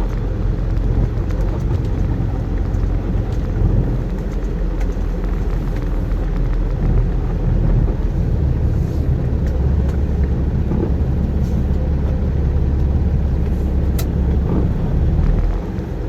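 Semi truck's diesel engine running in the cab as the truck pulls forward, a low steady rumble that grows heavier in the middle and eases just before the end, with a single sharp click near the end.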